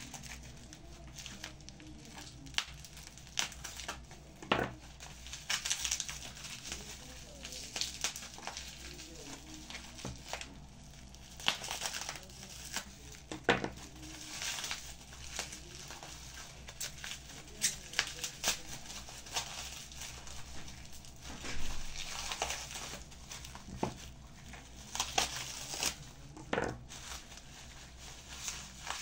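Irregular crinkling and rustling, like wrapping material being handled, broken by scattered sharp clicks and knocks.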